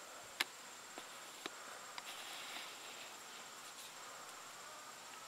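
Faint, steady, high-pitched drone of insects, with a sharp click about half a second in and a few softer clicks over the next couple of seconds.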